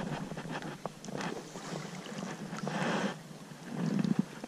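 River water sloshing and splashing in uneven surges around a wading angler's legs and a hooked smallmouth bass being brought to hand at the surface.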